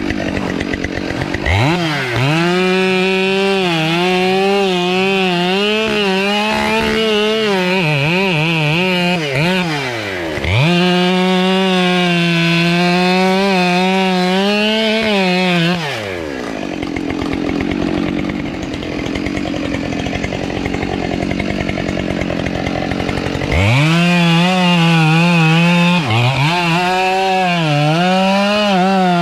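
Two-stroke chainsaw cutting into a tree at high revs, its pitch wavering and dipping as the chain bites into the wood. It revs up about a second and a half in and drops off briefly near ten seconds. It runs again for about five seconds, eases off for about seven seconds, then revs back up near the end.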